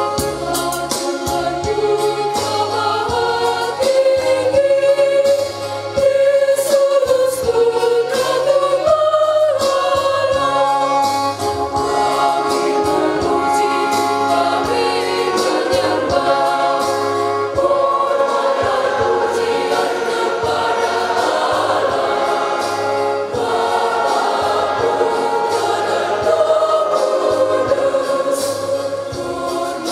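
Children's church choir singing a hymn, sustained phrases that continue throughout, with low held notes stepping underneath.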